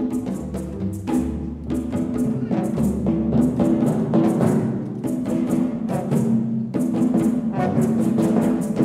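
Orchestra playing a lively calypso, with a quick, even beat of sharp percussion strikes over sustained string and wind notes and low bass notes.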